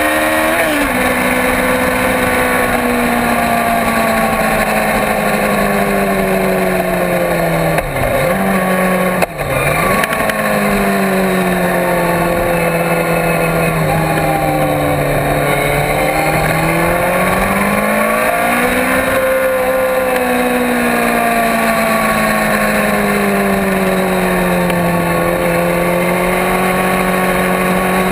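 Kawasaki Ninja ZX-14 inline-four sportbike engine under track riding, its pitch rising and falling smoothly as the rider accelerates and rolls off through the corners. The pitch drops sharply and recovers twice, about eight and nine seconds in, over a constant rush of wind.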